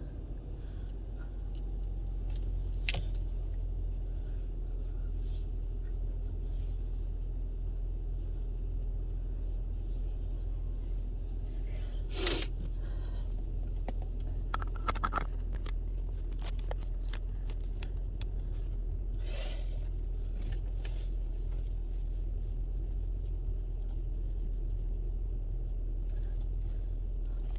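A vehicle running with a steady low rumble. A few light clicks and scrapes sound over it, the loudest about twelve seconds in.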